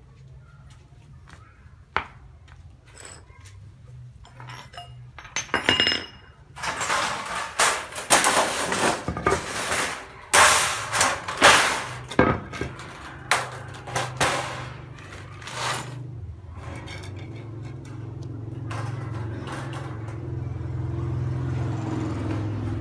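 Thin aluminium sheet being handled: it crackles, flexes and clatters against its steel frame and the tile floor in a run of irregular bursts, with a few sharp clicks before. A low steady hum builds near the end.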